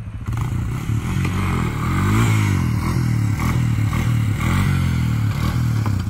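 ATV engine revving hard as the rider lifts the front wheels into a wheelie, its pitch climbing and falling twice.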